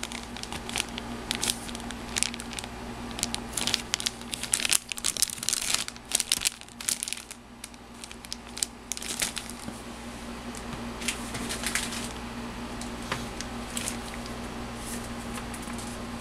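Clear plastic bags around plastic model-kit runners crinkling as they are handled, with dense irregular crackling that dies down after about nine seconds.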